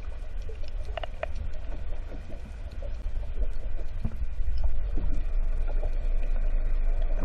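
Low, steady underwater rumble heard through a submerged camera, with a couple of faint clicks about a second in; it grows a little louder about halfway through.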